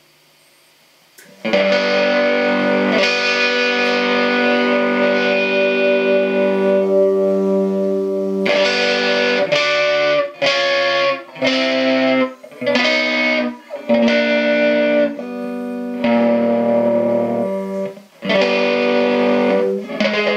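Homemade scrapyard electric guitar, tuned to G, played through an amplifier with distortion. After a second or so of quiet, long ringing chords, then a series of shorter chords with brief gaps between them.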